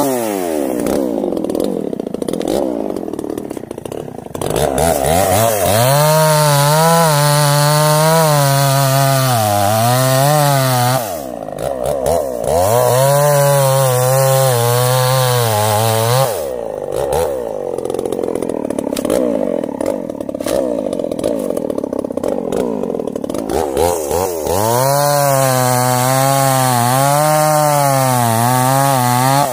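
Two-stroke chainsaw cutting into the base of a sengon (Falcataria moluccana) trunk in three bouts. Its engine note wavers as the chain bites under load and drops back to lighter running between cuts.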